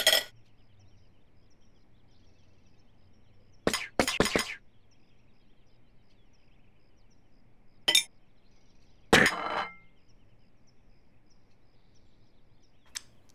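Plates clinking as they are set down on a table: a handful of short, separate clinks, with a small cluster about four seconds in and one with a brief ringing tail about nine seconds in.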